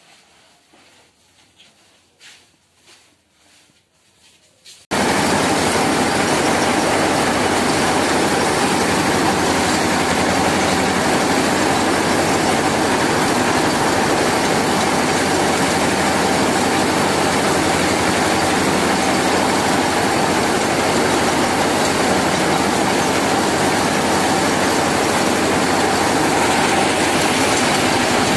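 Faint for about the first five seconds, then suddenly loud: a paddy thresher driven by a Mahindra Jivo 245 DI tractor's diesel engine, running steadily as rice straw is fed in. A dense, even rush from the threshing drum sits over the low, steady hum of the engine.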